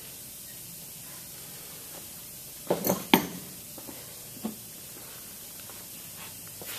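Tools and pump parts handled on a workbench: two sharp knocks close together about three seconds in and a lighter one a second and a half later, over a faint steady hiss.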